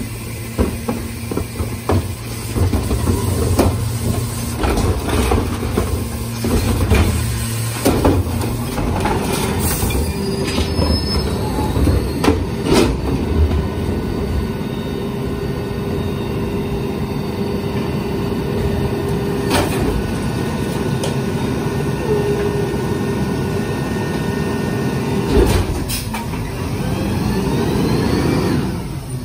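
New Way rear-loader recycling truck at work: recycling carts tipped into the hopper with clattering and banging of cans, bottles and cardboard, then the hydraulic packer blade cycling with a steady hydraulic whine. Near the end the truck's engine revs up as it pulls away.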